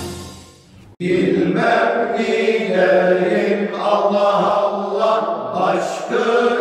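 Male choir of seven voices singing a Turkish ilahi a cappella, a low note held steady beneath the melody. It comes in suddenly about a second in, after instrumental intro music fades out.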